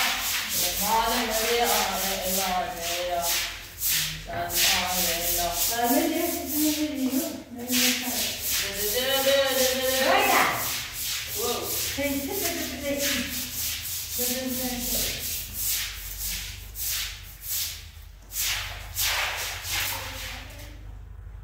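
Repeated rubbing strokes in a steady rhythm, with a person talking over them for most of the stretch; both fade near the end.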